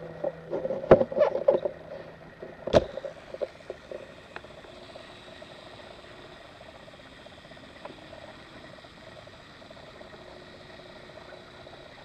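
Abu Garcia Orra SX baitcasting reel: a few sharp clicks in the first three seconds as the spool is set going in free spool, then the spool spinning freely with a faint steady whir on its tuned bearings.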